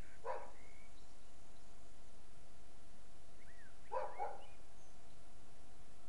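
A dog barking: one bark just after the start, then two quick barks about four seconds in. Faint short bird chirps come and go in between.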